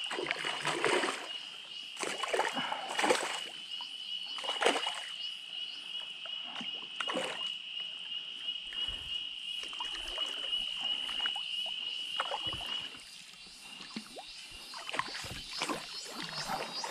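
Water splashing and sloshing around a fishing kayak at irregular intervals, over a steady high-pitched drone that stops about thirteen seconds in.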